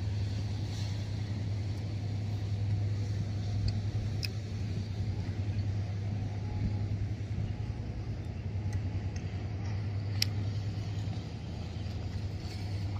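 Steady low engine drone from a departing container ship and the tugboat alongside it, with a couple of faint clicks.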